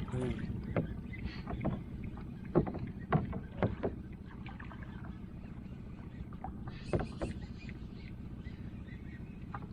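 Sounds aboard a small fishing boat: a steady low rumble with a handful of sharp knocks and clunks, most of them in the first four seconds and one more about seven seconds in.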